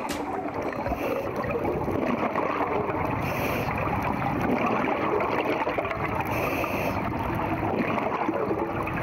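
Underwater ambience heard through a camera's housing: a steady bubbling gurgle from scuba divers' exhaled air, with a short hiss of breathing through a regulator twice, about three and six and a half seconds in.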